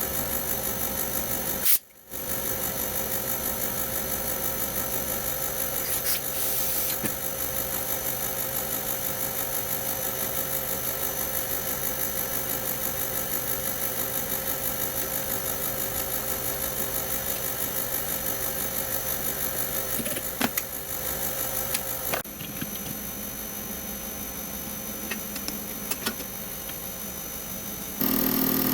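Common-rail diesel injector test bench running steadily, a machine hum with a fine regular pulsing. A short gap comes about two seconds in, and the tone shifts about two-thirds through and again near the end.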